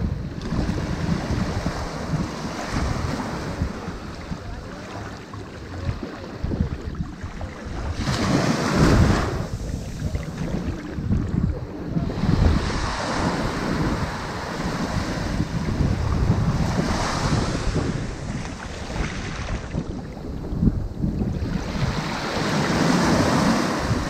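Heavy surf breaking on a pebble beach: waves crash and wash in, the roar swelling and easing in surges every few seconds.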